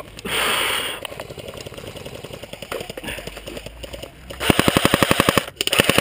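Airsoft rifle firing on full auto: two long bursts of rapid, evenly spaced shots in the second half, with a brief break between them. Fainter rapid firing comes before.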